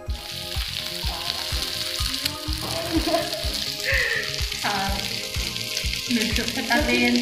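Meat pieces frying in an aluminium frying pan: a steady, dense sizzling hiss that cuts in suddenly at the start. Background music with a steady beat plays under it.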